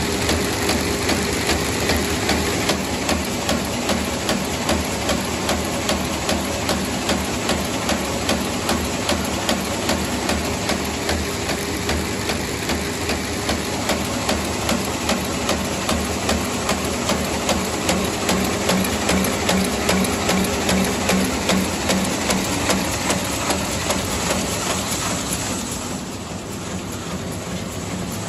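ZD-F350 straight-cut paper bag making machine running at 150 bags a minute: a steady mechanical clatter with a regular beat of about two and a half strokes a second, one per bag cut and formed. It grows slightly quieter about two seconds before the end.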